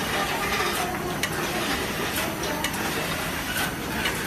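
Automatic carton film overwrapping machine running: a steady mechanical clatter from its pushers and folding mechanism, with repeated sharp clicks.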